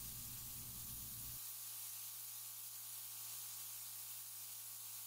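Air blow gun held open, hissing steadily as compressed air blows out continuously.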